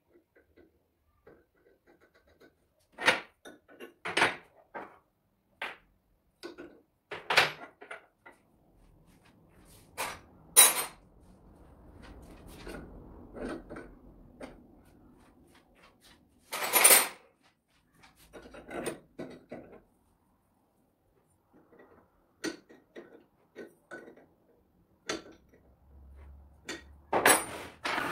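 Metal parts of a Multilith 1250 compressor clinking and knocking as they are fitted by hand: scattered sharp clicks, with a stretch of scraping and rubbing about ten seconds in.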